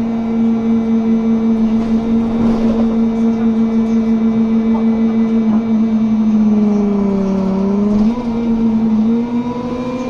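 Cooling fans of a BMC Procity city bus, heard from inside the cabin, humming as a loud steady drone with a regular pulsing beat. About six seconds in the hum sags lower in pitch, steps back up near eight seconds and climbs again near the end.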